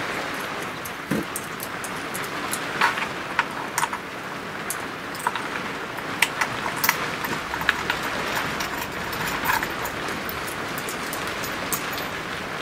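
Small metal clamp parts, a screw and a nut being handled and fitted on an MDF spoilboard, giving irregular sharp clicks and taps over a steady background hiss.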